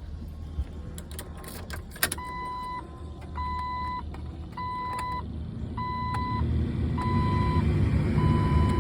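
Jeep Wrangler TJ's warning chime beeping a steady tone six times, about once a second, after a click. Under it the heater blower fan runs and grows louder over the last few seconds as its speed is stepped up, now working through a new blower motor resistor.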